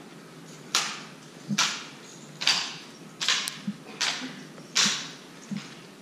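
Drill team's rifle manual: eight sharp slaps and knocks of hands striking the drill rifles, roughly one every second, some with a dull thud beneath and each ringing briefly in the hall.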